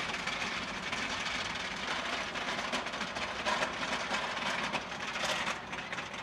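Regina wooden roller coaster train running on its track: a steady rumble with a dense clatter of fine clicks.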